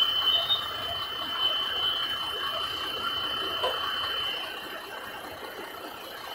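A steady high-pitched electronic tone, like an alarm buzzer, held continuously and fading somewhat after the first second, over a low steady cab hum.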